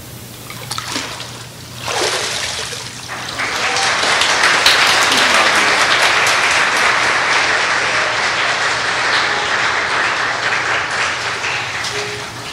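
Water splashing in a baptismal pool about two seconds in, as a girl is immersed and raised. The congregation then claps, swelling to a peak and easing off near the end.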